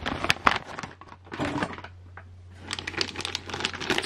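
Clear plastic parts bags crinkling and rustling as they are handled, with the hard parts inside clicking against each other, in three bouts with short pauses between.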